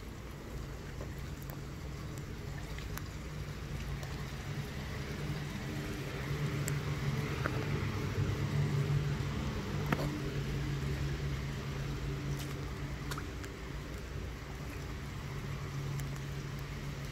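Steady low engine hum, like a motor vehicle running nearby, growing louder to a peak about halfway through and then easing off, with a few faint scattered clicks.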